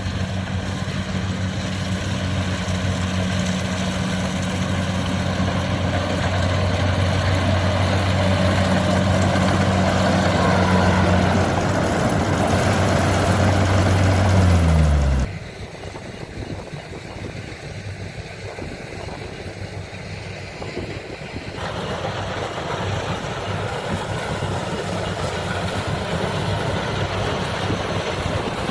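Heavy diesel engine of rice-harvesting machinery running steadily with a deep, even hum. About halfway through its pitch falls and the sound breaks off abruptly into a quieter running engine, which grows somewhat louder again near the end.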